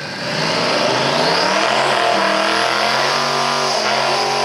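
Twin-turbo 4.6-litre two-valve V8 Mustang GT revving hard in a burnout, its rear tyres spinning in the water box. The revs climb about half a second in and hold high, with a hiss of tyre noise underneath.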